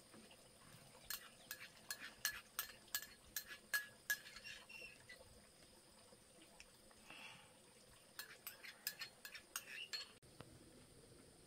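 Spoon clinking and scraping against a small ceramic bowl: a run of quick, light clinks from about a second in to four seconds, then a second run near the end.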